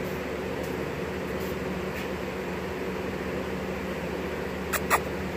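Electric box fans running with a steady whirring hum. Near the end come two short sharp clicks in quick succession.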